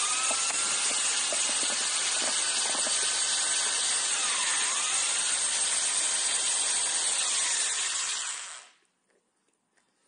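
Electric drill running with a corn cob in its chuck while the spinning cob is eaten: a loud motor whine under a hissing scrape of kernels against teeth, its pitch dipping and recovering a few times. It cuts off abruptly about eight and a half seconds in.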